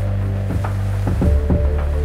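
Background music: held bass and chord notes with a light beat, changing chord about a second in.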